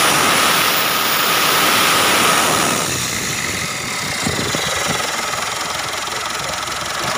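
Mitsubishi Triton 4D56 turbodiesel idling with a whine from the belt-driven accessories, a "wing-wing" that sounds like a turbo but isn't, along with a light "tak-tak" catching noise. The whine is louder for the first three seconds, then eases. Its cause is a failed one-way bearing in the alternator pulley.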